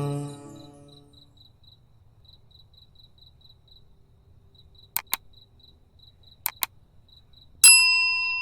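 Crickets chirping in a steady, evenly spaced pulse, as night ambience after a sung note fades out. Two quick double clicks come midway. Near the end a single chime is struck and rings on.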